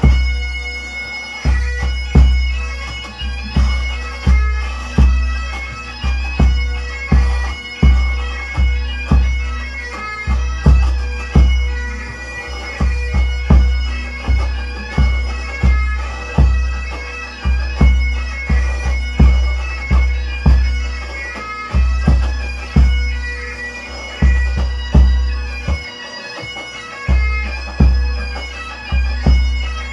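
Scottish pipe band bass drum struck with felt flourishing mallets in a steady beat of deep strokes, about one a second, played along with bagpipe music: steady drones under a chanter melody.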